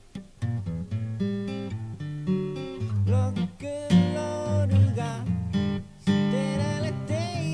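Background music: a strummed acoustic guitar playing a song.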